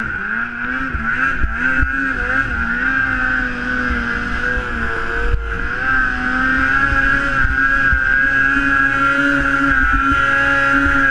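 Snowmobile engine running hard under load while climbing a steep snowy hill, a steady high-revving drone whose pitch wavers early on, with a few brief thumps and a short dip about five seconds in.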